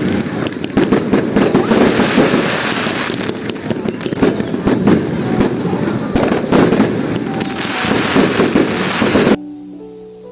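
Many fireworks going off at once: a dense, rapid crackle of pops and bangs. It cuts off suddenly near the end, giving way to soft music.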